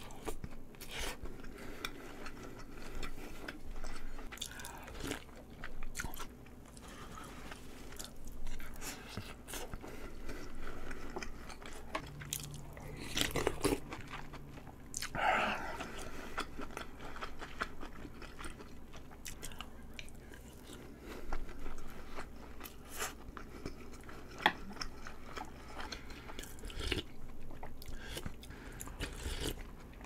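A person eating close to a microphone: chewing and biting mouthfuls of marinated-salmon rice bowl and beef bulgogi hot pot, with scattered small clicks and a few louder mouth sounds.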